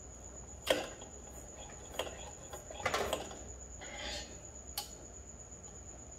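Pressure kerosene lantern (Petromax type) being pumped by hand to pressurize its fuel tank: about five irregular strokes, some sharp clicks and some short whooshes.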